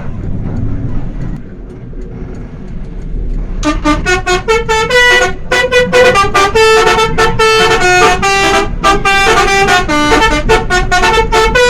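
Bus 'telolet' horn, a multi-note musical air horn, playing a quick tune of short notes that hop up and down in pitch. It starts about three and a half seconds in, after a low vehicle rumble, and runs with a few brief breaks.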